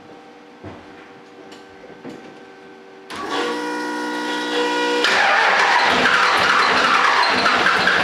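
1995 12-valve Cummins 5.9 L inline-six diesel with a P-pump being started after a head gasket replacement. The starter cranks it for about two seconds from about three seconds in, then the engine catches about five seconds in and keeps running loudly.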